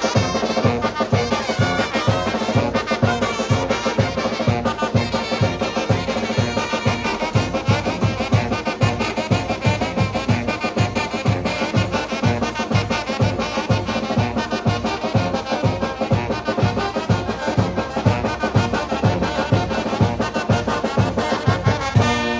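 A Mexican banda plays tlacololero dance music, with trumpets and trombones over a steady drum beat.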